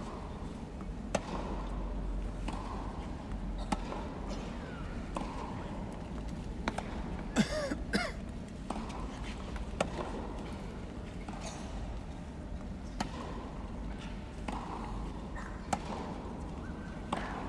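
Tennis rally on an indoor hard court: sharp racket strikes and ball bounces every second or two, with a brief shoe squeak on the court surface about seven and a half seconds in. A steady murmur of a large arena crowd runs underneath.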